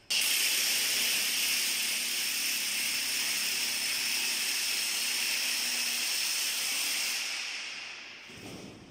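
Handheld power drill drilling into the wall: a steady, harsh, hissing whir that starts suddenly and fades out over the last couple of seconds.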